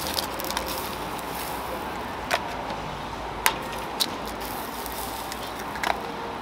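Eggshells being cracked against a metal egg-bread mold, several sharp cracks a second or so apart, over a steady hiss.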